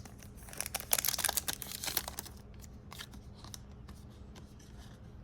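Foil wrapper of a Pokémon booster pack being opened and handled, crinkling densely for about two seconds, then a few lighter crackles and ticks.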